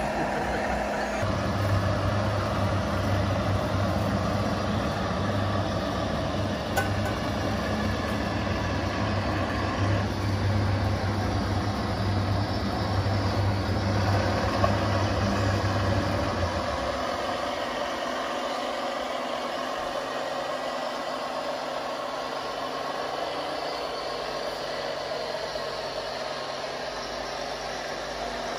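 Simulated diesel truck engine from a radio-controlled model truck's sound module, idling with a steady low hum that stops a little over halfway through. A steady background hiss continues throughout.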